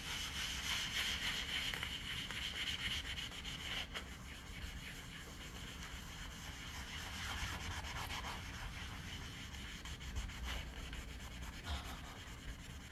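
An eraser pad rubbing over a wet chalkboard surface, scrubbing off an old chalk design with a continuous uneven scrubbing noise.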